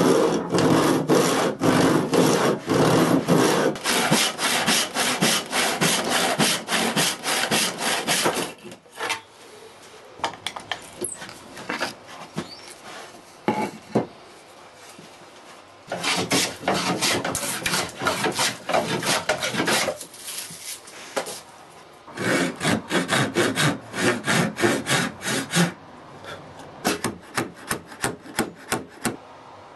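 Hand saw cutting through a wooden board, in three long runs of rapid back-and-forth strokes, with quieter stretches of scattered light knocks between them. Near the end, fainter separate strokes.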